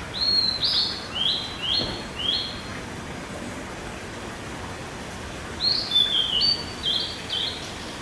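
A songbird singing two phrases of five or six clear, upslurred whistled notes, the second phrase beginning about five and a half seconds in, over a steady background hiss.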